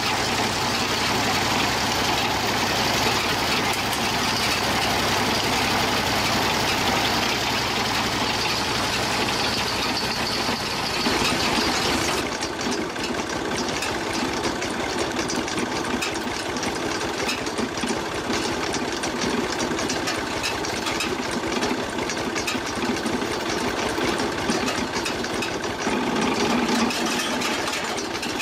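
An engine running steadily, its sound changing abruptly about eleven seconds in.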